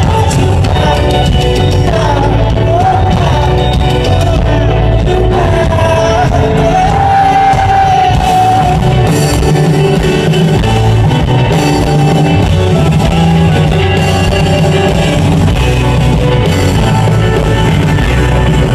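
Rock band playing live, heard loud from the audience: a gliding sung melody over guitars, bass and drums in the first half, then the full band with cymbal crashes every couple of seconds.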